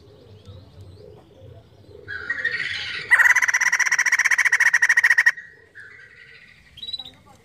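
White-crested laughingthrush calling. A rising call about two seconds in leads into a loud burst of rapid, fast-repeated cackling notes lasting about two seconds, then softer calls and a short high note near the end.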